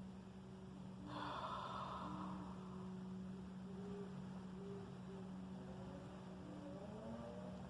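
A steady low hum of unknown source, with faint short tones coming and going above it and faint rising tones near the end. A brief hiss, the loudest moment, comes about a second in.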